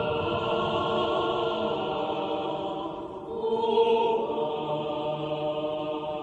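Background film score of sustained, choir-like chords that dip and then swell briefly about three and a half seconds in.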